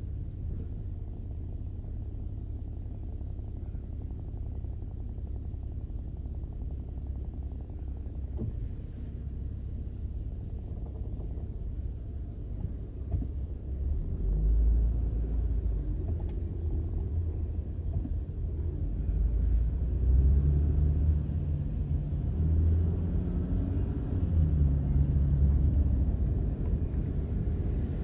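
Car driving: a steady low engine and road rumble that gets louder about halfway through, with the engine note rising and falling after that.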